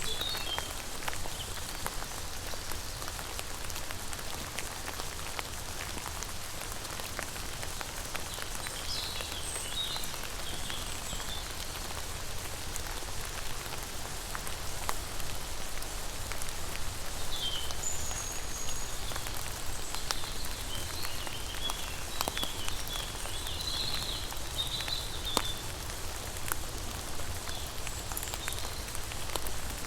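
Steady rain falling on a surface: an even, crisp hiss with sharp ticks of individual drops hitting.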